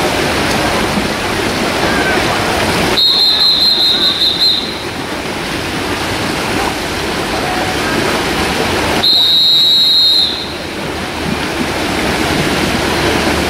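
Two long, high whistle blasts, each about a second and a half, about six seconds apart, over steady poolside noise: a swim referee's whistle calling the next heat up onto the starting blocks.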